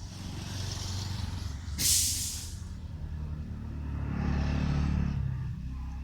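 Heavy diesel truck engine running, with a sharp air-brake hiss about two seconds in, then the engine revving up briefly.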